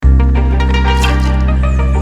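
Background music: a loud held bass with notes played over it, starting suddenly.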